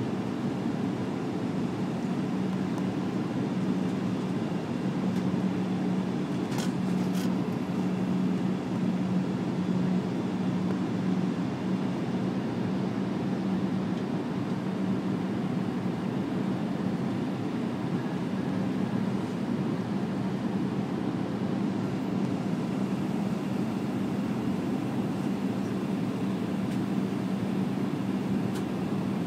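Steady cabin noise inside an Airbus A319 airliner on approach: jet engine and airflow noise with a constant low hum, heard from a window seat beside the wing.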